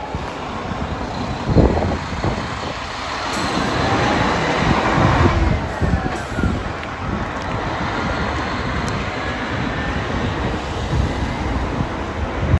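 Highway coach driving away along a street, its diesel engine and tyres rumbling. The sound builds to a peak about five seconds in, then eases and holds steady as the coach draws off.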